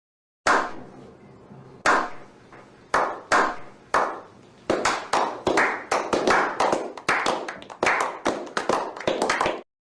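Slow clap by one person: single echoing hand claps with pauses between them, then speeding up to about three a second and stopping just before the end.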